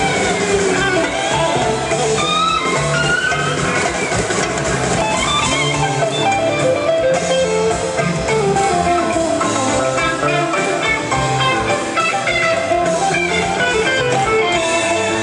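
Live rock band playing an instrumental passage: electric guitar lead with bent, gliding notes over bass guitar and drum kit.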